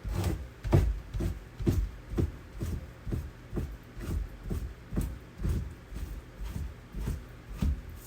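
Fleshing knife being drawn in short repeated strokes down an otter's tail, scraping the fat off the hide, about two to three strokes a second.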